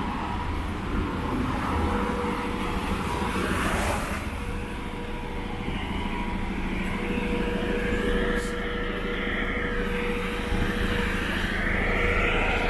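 Road traffic: a car drives past about four seconds in, over a steady engine hum with a held tone.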